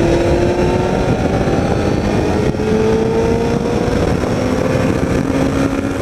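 Motorcycle engine running under way, its pitch rising slowly as the bike gathers speed, with a step in the note about two and a half seconds in, under steady rushing wind noise on a helmet-mounted camera.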